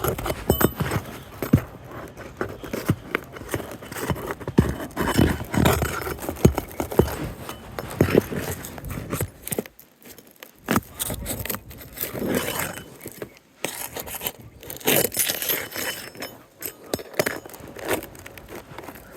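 Roof shingles being worked loose and their nails pried out: irregular scraping with many sharp clicks and knocks.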